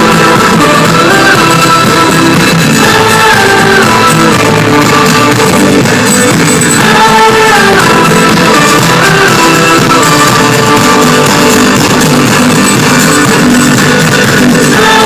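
Pop-rock song with guitar, playing steadily with no lyrics sung here.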